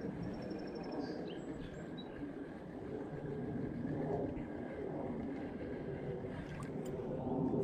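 Steady rush of running creek water, with faint bird chirps about a second in.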